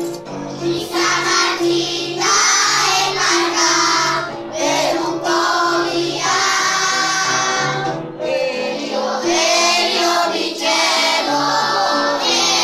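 A children's choir singing in phrases, with instrumental accompaniment holding steady low notes underneath.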